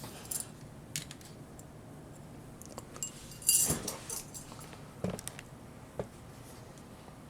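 Light clicks and clatter of a die-cast and plastic Bandai DX Chogokin VF-1J toy figure being handled and posed, with a louder jingling rattle of parts about three and a half seconds in.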